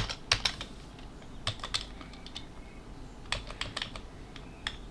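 Typing on a computer keyboard: a few short runs of key clicks with pauses between them.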